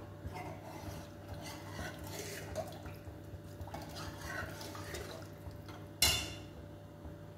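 Water poured from a glass into a pressure cooker of vegetable daliya and stirred with a steel spoon, with faint sloshing and scraping and one sharp clink of the spoon against the pot about six seconds in.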